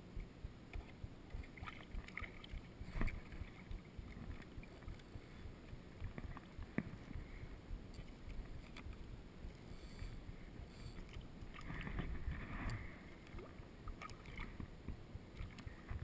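Shallow water sloshing and lapping around a wading angler, with scattered splashes from a small hooked fish thrashing at the surface; the splashing is busiest about twelve seconds in.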